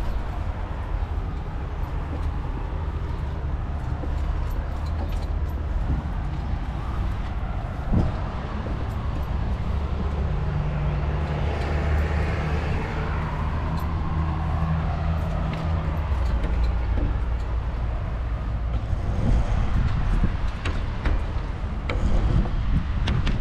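Steady road traffic with a low rumble, and a vehicle passing near the middle.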